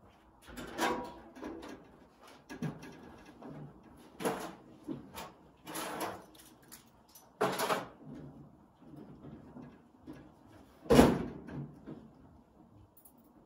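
A string of irregular knocks and clunks, about ten in all, the loudest one about eleven seconds in.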